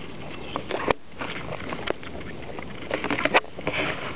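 Goats grazing right next to the microphone: irregular crisp tearing of grass blades as they bite it off, coming in short clusters, with chewing between bites.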